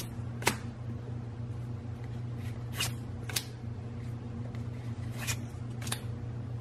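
Pokémon trading cards being flipped through one at a time, each card slid off the front of the stack and tucked behind the rest with a brief papery swish, about five times, over a steady low background hum.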